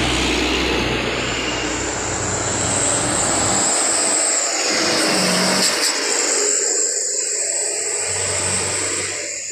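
Diesel engines of sugarcane-laden light trucks working hard up a hill. One passes close with a strong low engine hum that fades after about three and a half seconds. A second truck goes by and pulls away, and its hum returns near the end.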